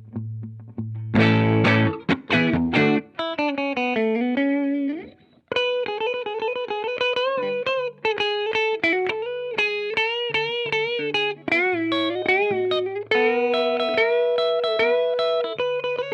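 Electric guitar played through a Ground Control Serpens optical compressor with its blend turned fully up to the compressed signal. Sustained and strummed chords give way to a single-note lead line with string bends and vibrato, broken by a short pause about five seconds in.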